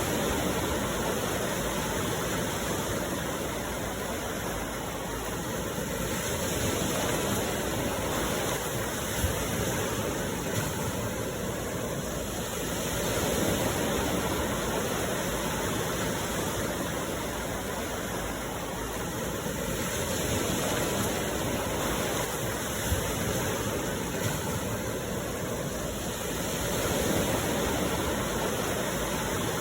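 Sea waves washing ashore, the surf swelling and easing about every six to seven seconds.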